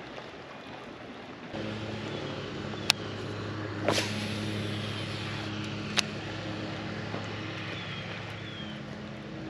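An engine runs at a steady low drone that comes in abruptly about a second and a half in, with a few sharp clicks over it.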